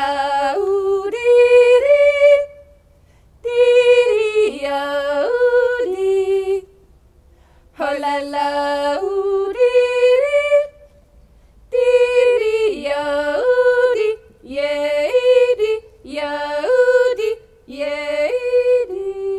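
Unaccompanied female yodeling in about seven short phrases with brief pauses between them. The voice flips sharply back and forth between low chest notes and high head notes.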